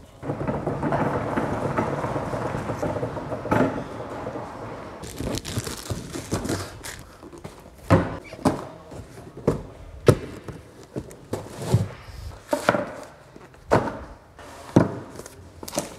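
A few seconds of dense rattling and rustling, then a series of sharp thunks and knocks about once a second through the second half, as of hard objects being put down on a surface.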